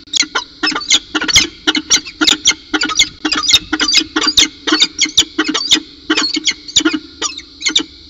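Peregrine falcons calling in a fast run of short, sharp chips, about four a second.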